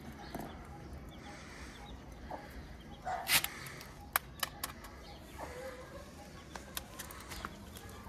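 A hen clucking, with several sharp taps and clicks around the middle as eggs are handled against concrete and brick.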